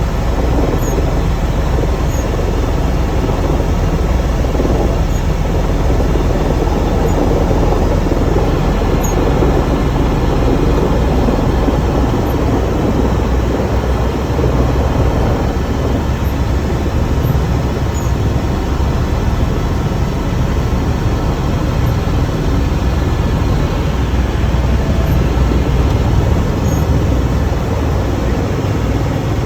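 Helicopter engine and rotor noise heard from inside the cabin in flight: a loud, steady rumble with no break.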